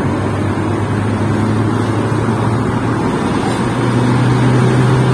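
Car engine and road noise heard from inside the moving vehicle's cabin: a steady low hum over tyre rumble, growing a little louder near the end.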